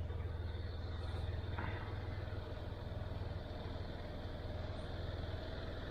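John Deere 5055D tractor's three-cylinder diesel engine running steadily.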